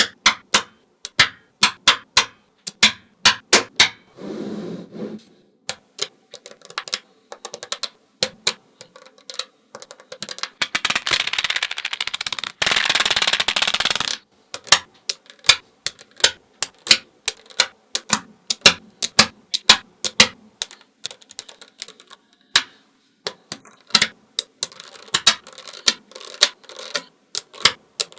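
Small neodymium magnetic balls snapping together, sharp clicks coming at an irregular pace. Near the middle there are about three seconds of continuous clatter.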